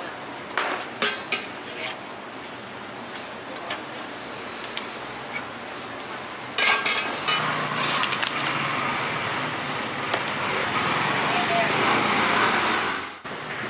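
Clicks and knocks of a knife and plastic clamshell tofu boxes being handled on a stainless-steel counter, over a steady background of market noise. The background gets louder and busier about halfway through, with more clicks, then cuts off sharply just before the end.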